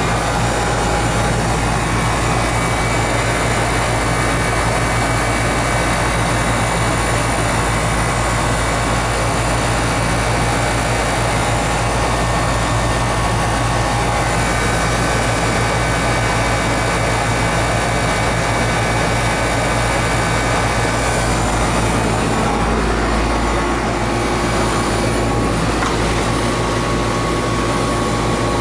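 Heating equipment running with a steady mechanical hum and rush. Its tone shifts slightly about 23 seconds in.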